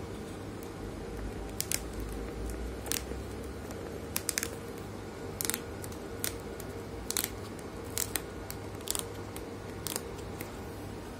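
Thin plastic sleeve around a new tablet crinkling in short, irregular crackles as fingers grip and pull at it, over a steady low hum.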